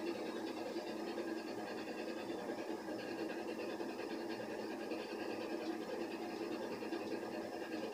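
Steady running noise inside a locomotive cab: an even hum with a constant low tone, no knocks or sudden changes.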